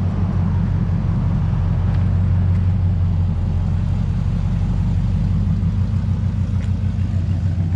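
Pickup truck's engine and exhaust running with a steady low rumble, holding the same pitch throughout.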